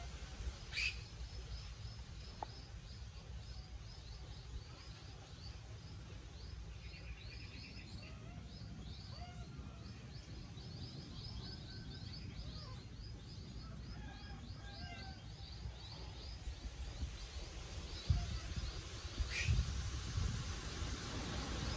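Outdoor ambience: birds chirping in quick repeated series, with a few lower whistled notes, over a low rumble of wind on the microphone that grows louder near the end. Two sharp clicks, one about a second in and one near the end.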